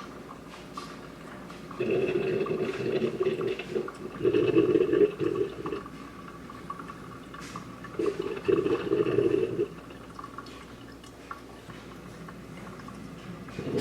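Water pouring and gurgling in three bursts of one to two seconds each, over a steady quieter wash of running water.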